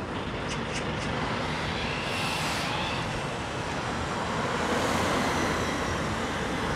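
Busy city street traffic: a steady wash of noise from passing vehicles, with a few short clicks less than a second in.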